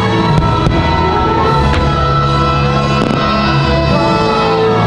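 Loud fireworks-show soundtrack music, with held notes and chords. A few sharp cracks, likely firework bursts, cut through it.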